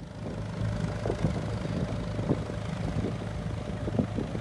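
Narrowboat engine running steadily as the boat motors along the river: a low, even hum with uneven knocks on top.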